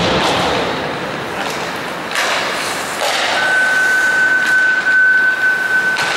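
Ice hockey rink sound: crowd chatter echoing in the arena, with sharp knocks and thuds of sticks and puck against the boards, and a long steady high tone starting about three seconds in.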